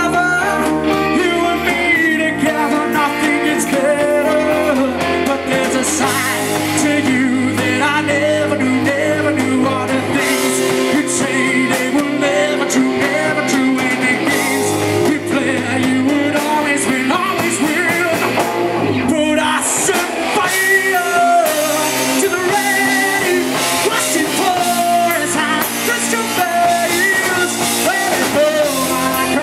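Live rock band playing: a male lead vocal over electric guitars, bass guitar and drum kit, through a small PA. The bass and low end drop out briefly about two-thirds of the way in before the band comes back in.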